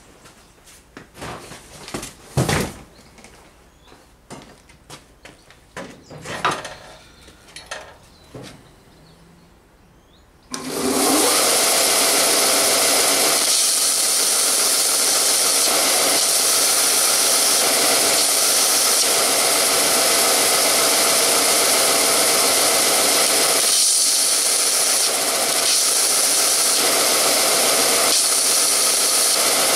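A few knocks and clatter, then about a third of the way in an electric belt sander starts and runs steadily with a loud hiss and hum. A drill bit is held against its moving abrasive belt, grinding the bit's cutting edge to sharpen it.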